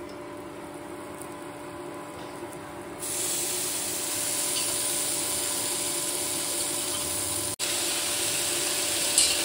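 Low steady hum, then about three seconds in a steady frying sizzle starts up: boiled noodles and cabbage frying in a hot oiled non-stick pan. A single sharp tick near the end.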